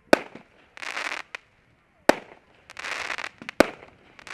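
Consumer fireworks going off: three sharp bangs, about two seconds in, and again about a second and a half later, with crackling, hissing bursts between them.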